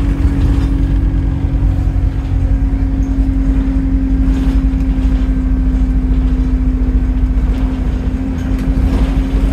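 Arriva London bus ENX17's engine running steadily on the move: a dense low rumble with a held hum that sinks slightly in pitch.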